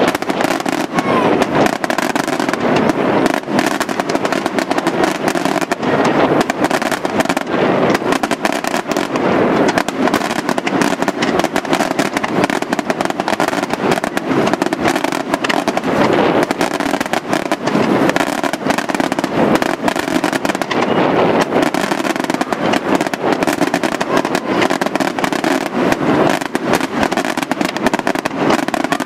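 Daytime aerial fireworks: a dense, unbroken string of bangs and crackling from shells bursting overhead.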